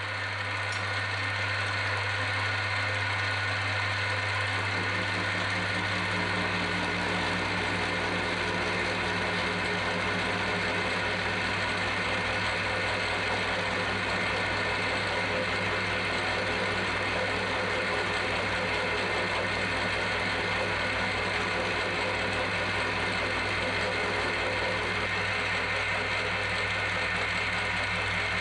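Milling machine running with a disc gear cutter cutting a tooth into a pinion shaft held in a dividing head. It makes a steady hum, and the sound grows deeper and fuller about five seconds in.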